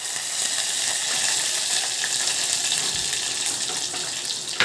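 Crushed garlic and fresh curry leaves sizzling in hot oil in a steel pot, a steady hiss: the tempering (phodni) stage, after the mustard seeds have spluttered.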